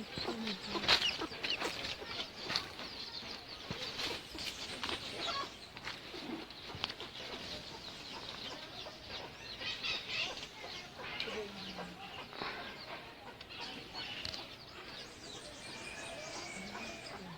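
Chickens clucking, with many short, high chirps scattered throughout.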